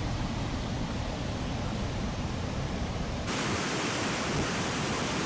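A waterfall and its white-water rapids rushing: a steady wash of water noise that becomes suddenly louder and hissier about three seconds in.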